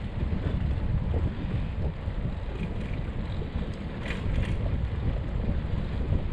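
Wind buffeting a GoPro Hero 7 Black's microphone: an uneven low rumble that goes on throughout.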